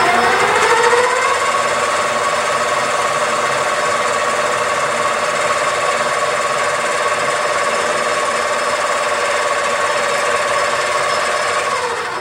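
Metal lathe motor and gearing whining as the spindle comes up to speed, then running at a steady pitch with a hiss underneath, and switched off shortly before the end.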